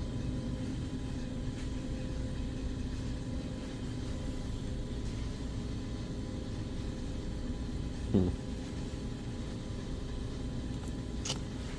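Steady low hum with a few fixed tones, broken once about eight seconds in by a short, louder sound that falls in pitch.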